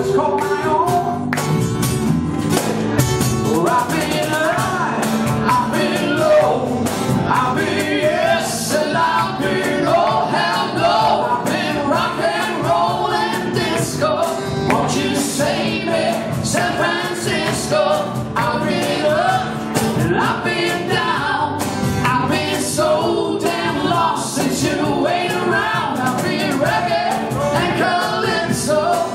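Live acoustic band music: acoustic guitars playing with male singing.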